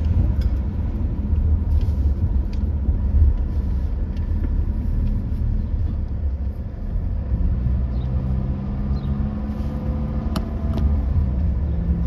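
A car being driven, heard from inside the cabin: a steady low rumble of engine and road noise, with a steadier engine hum joining it for a few seconds in the second half.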